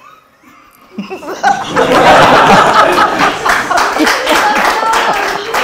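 Several people laughing hard, breaking out about a second in, with some hand claps mixed in.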